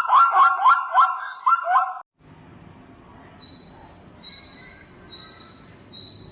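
Animal calls: a loud, fast series of rising call notes, about four or five a second, that stops abruptly about two seconds in. Then come short, high, steady whistled notes, about one a second, over a faint background hiss, like a bird calling.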